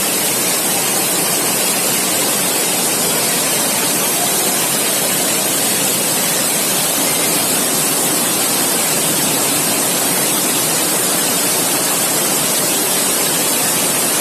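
Loud, steady rush of water, the sound of heavy rain and flooding water, without a break until it cuts off at the end.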